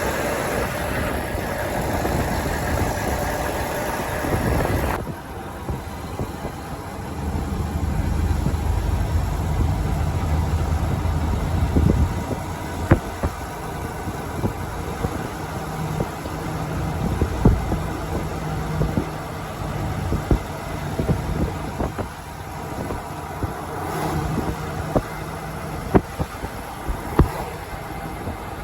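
Truck engine running with road noise; the higher noise drops off about five seconds in, and scattered clicks and knocks follow.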